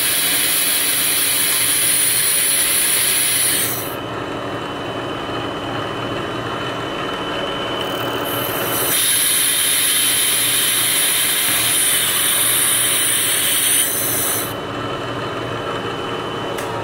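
Milling machine spindle running at about 2200 RPM, its end mill cutting away the head of a stripped socket head cap screw, with a compressed-air nozzle hissing loudly to blow the chips clear. The air cuts off about four seconds in, comes back around nine seconds and stops again near fourteen seconds, leaving the spindle whine and the cutting.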